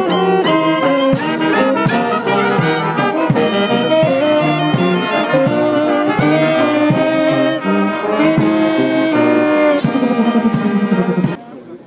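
Brass band playing: trumpets, saxophones, clarinet and sousaphone over steady drum beats. The music drops off suddenly just before the end.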